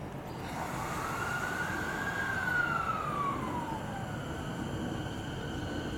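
JR 209 series electric train pulling away, its traction inverter giving a whine that rises in pitch for about two seconds, then falls away, over the low rumble of the train.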